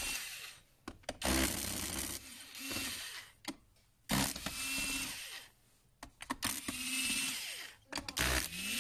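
Cordless electric screwdriver running in a series of short runs of about a second each, backing screws out of a robot vacuum's plastic base plate, with clicks from the bit and screws between runs.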